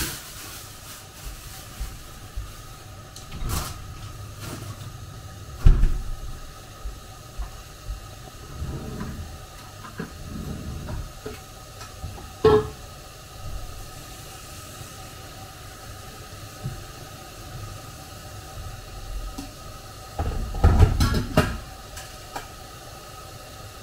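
Scattered knocks and clatter of kitchen items being handled on a countertop: a few single sharp knocks, then a busier burst of clattering near the end, over a steady low background hum.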